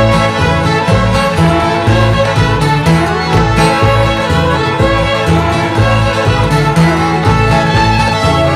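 A group of fiddles playing a lively old-time mountain dance tune together, over a pulsing line of low bass notes.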